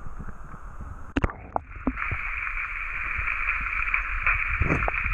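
River current heard through a camera dipped into the water: a sharp knock about a second in as it goes under, then a steady muffled rushing hiss of water around the submerged camera, with a few low thumps near the end.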